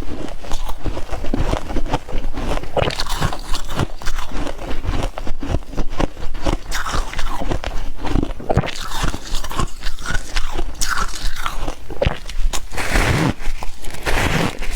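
Freezer frost being bitten and chewed close to the microphone: a dense, irregular run of crisp crunches.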